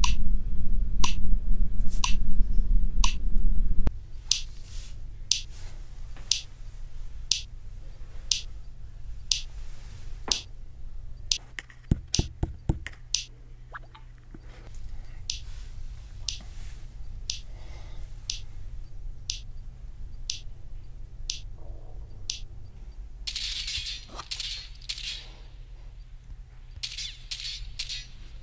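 Test clicks from an audio latency tester app played through MPow X6 earbuds and picked up by a small microphone beside them, a sharp tick about twice a second. A loud low hum runs under the clicks for the first four seconds, a few quick knocks come about twelve seconds in, and a short hiss about 23 seconds in.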